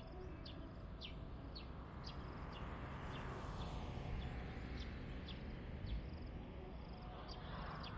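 Outdoor field ambience: short high bird chirps repeat about once a second over a steady rustling hiss and a low rumble, with the hiss swelling in the middle and again near the end.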